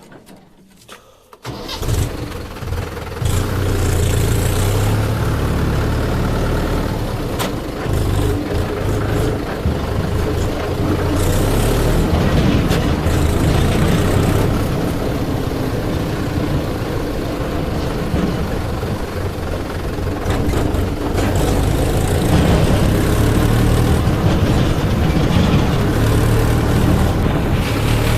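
A heavy diesel engine of a backhoe loader or farm tractor comes in about a second and a half in, loud, with a strong low rumble, and runs steadily on.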